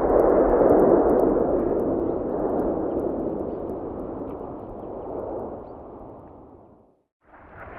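Rolling, echoing rumble of a cannon shot fading away over about seven seconds, dropping to silence; another blast's rumble starts right at the end.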